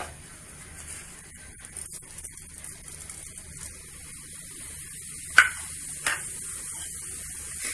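Cumin seeds sizzling faintly in hot oil, with light crackling, and two sharp clicks a little over halfway through.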